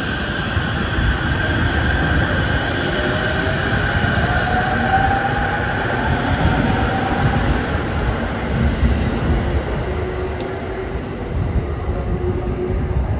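Chiba Urban Monorail suspended monorail train running: a steady rumble under a whine from its drive, with one whine gliding up in pitch a few seconds in.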